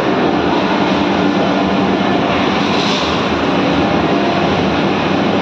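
Loud, steady roar of a large cooking kitchen at work, with a low hum under it and a brief hiss about two and a half seconds in.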